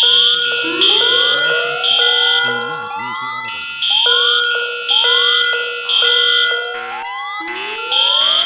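Several fire alarm sounders going off at once: overlapping rising whoop tones, with a high horn tone pulsing about once a second over steady tones.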